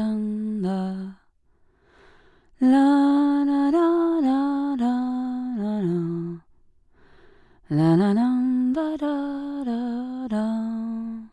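A woman humming a tune with her mouth closed, in phrases of a few seconds that step from note to note, with short pauses for breath between phrases.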